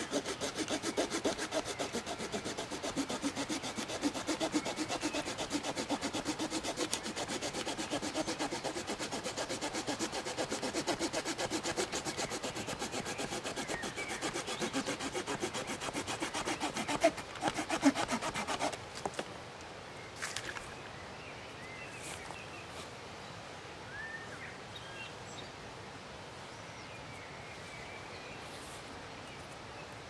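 Hand sawing through a small branch with a short pocket-saw blade, in rapid back-and-forth strokes. A few louder cracks come near the end as the cut finishes, and the sawing stops after about 19 seconds, leaving a faint outdoor background with a few bird chirps.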